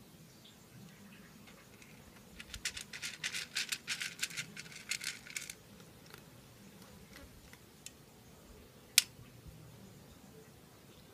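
A cat eating dry kibble from a metal tray: a quick run of crisp crunches and clinks lasting about three seconds. Later comes a single sharp click, the loudest sound.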